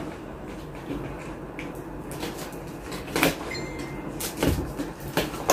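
A paper gift bag and its wrapping being opened and unpacked by hand: scattered rustles and crinkles, with a soft thump about four and a half seconds in.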